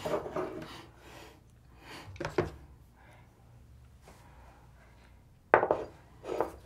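Tableware being handled at a meal table: a soup ladle and small bowls knocked and set down, a few short clinks and knocks, the loudest a little over five seconds in.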